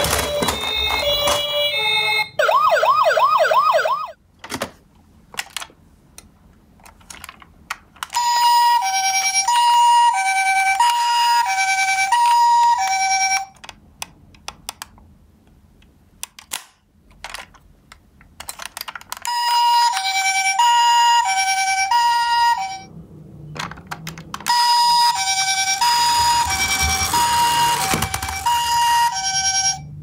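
Toy ambulances' electronic sirens: a brief wavering wail, then the Japanese-style high-low two-tone ambulance siren sounding three times for several seconds each. Between them come clicks from the plastic toys being handled.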